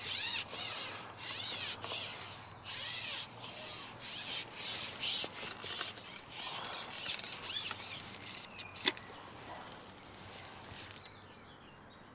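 A run of short rubbing or scraping strokes, about two a second, easing off about eight seconds in, with one sharp click shortly after.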